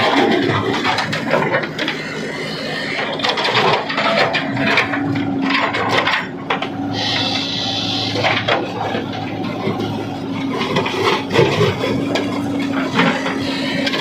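Heavy machinery working: an engine running steadily under irregular scraping and knocking, with a hiss for a second or so about halfway through.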